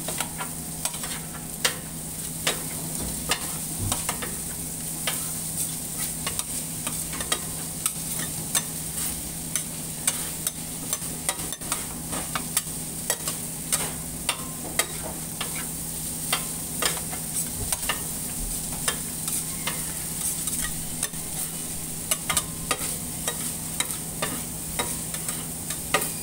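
Metal spatulas clacking and scraping on a steel teppan griddle as fried rice is chopped and turned, many quick irregular clicks over a steady sizzle. A steady low hum runs underneath.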